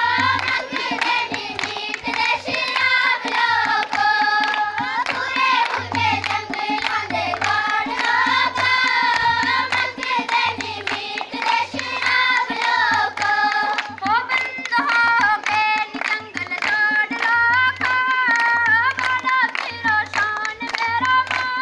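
A group of girls singing a song together, accompanied by a barrel drum beating a steady rhythm about once a second.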